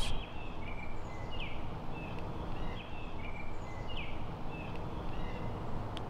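A small bird chirping over and over, short high notes about twice a second, over a steady low background noise.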